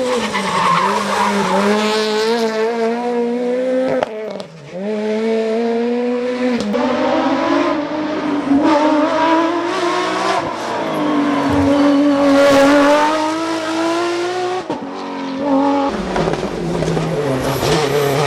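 Rally cars driven hard on a special stage: the engines rev up and drop back again and again through gear changes and braking. There is tyre squeal in places.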